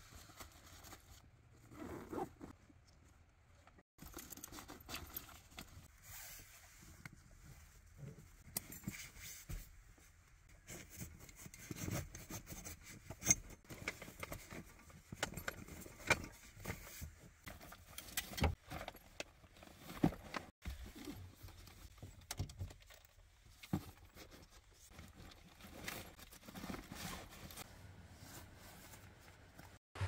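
Gear being handled and stowed: irregular light metal clinks and jangles of carabiners and clips, mixed with the rustle of nylon bags and pouches.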